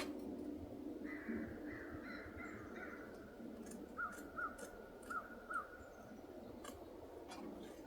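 Crows cawing: a run of calls about a second in, then four short separate caws a little past the middle, with a few light clicks.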